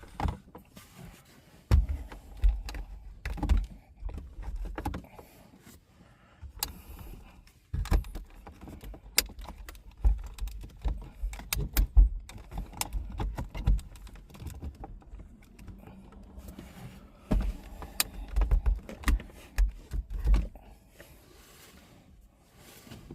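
Plastic interior trim and wiring being handled and pushed into place: irregular clicks, taps and rustling, with bursts of low thumps.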